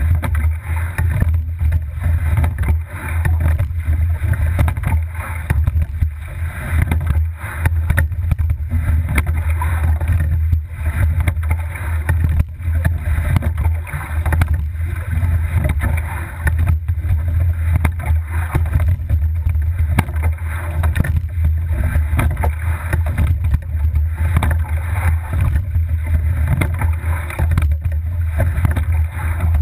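Rowing double scull under way: oar blades splashing and water rushing past the hull, with regular knocks recurring every second or two, over a steady low rumble.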